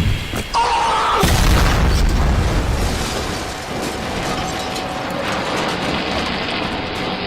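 A loud boom about a second in, followed by a long, slowly fading rumble and hiss, like an explosion sound effect.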